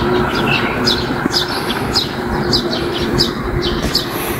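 Small birds chirping, repeated short notes that fall in pitch, over a low steady hum and an outdoor rumble.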